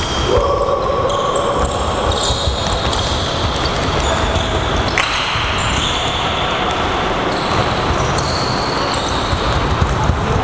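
Handballs bouncing on a hard sports-hall floor during training drills, with scattered short high squeaks from shoes on the court.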